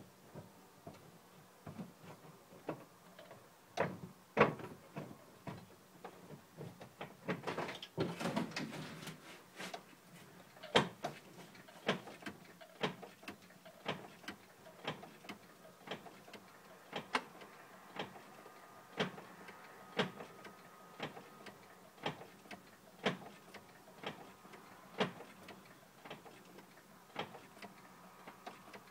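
Clicks and knocks from a DSM's clutch slave cylinder pushrod and release fork as the clutch pedal is worked. They come irregularly at first, then settle to about one a second.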